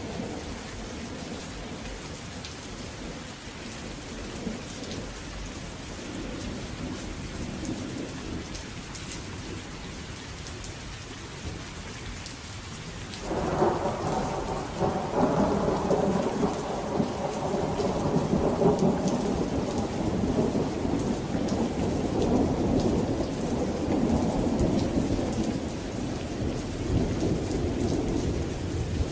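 Steady rain with a low rumble of thunder under it. About halfway, a much louder roll of thunder breaks in suddenly and keeps rumbling until near the end.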